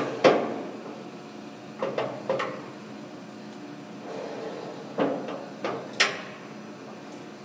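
Sharp metallic clunks of the 60-inch Monarch T-lathe during a spindle speed change, over the machine's steady low hum. They come in three groups: two at the start, three about two seconds in, and four between five and six seconds in.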